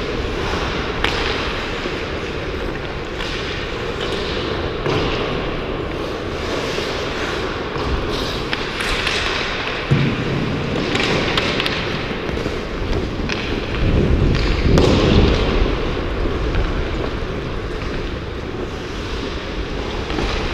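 Ice hockey play on the ice: skate blades scraping and carving, with a few sharp knocks of sticks and puck and a heavier thud about ten seconds in.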